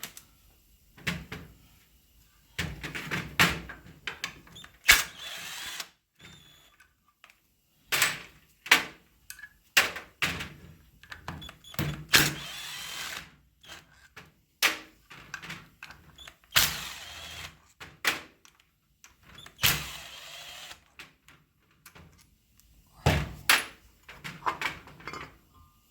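Irregular clanks, knocks and thunks of hand tools and metal parts being handled during motorcycle disassembly, with a few longer scraping or rattling stretches of about a second.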